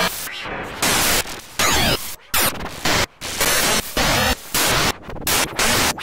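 Omnisphere synth patch run through the Glitch Machines Hysteresis glitch plugin, with its random button hit every half second or so. The result is harsh, noisy glitch textures that jump to a new sound every fraction of a second, broken by short dropouts and quick rising and falling pitch sweeps.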